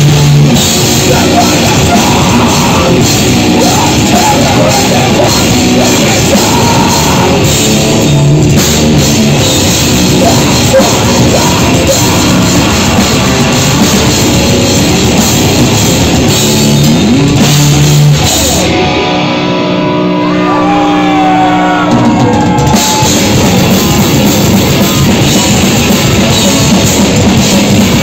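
Grindcore band playing live at full volume: distorted electric guitars and bass, a drum kit and vocals. About 19 s in, the drums and cymbals drop out for roughly four seconds, leaving held guitar notes with one sliding note. Then the full band comes back in.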